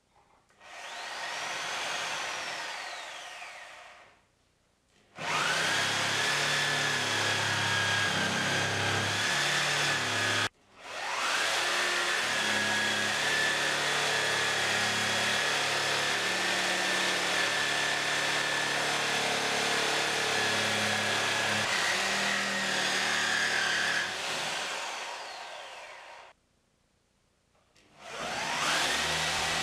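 Reciprocating saw with a metal-cutting blade cutting through the nails between pallet boards, its motor whining steadily under a rough rattle of the blade. A short trigger pull spins it up and down about a second in. Then come long runs of steady cutting, broken by a brief stop about ten seconds in. It winds down a few seconds before the end, then starts up again.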